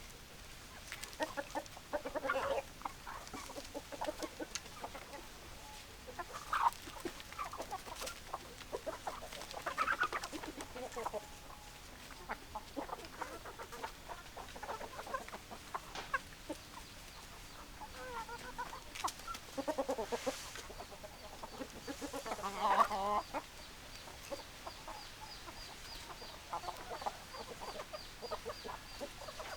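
Chickens clucking: many short, irregular clucks overlap throughout, with a few louder calls, the loudest a little after twenty seconds in.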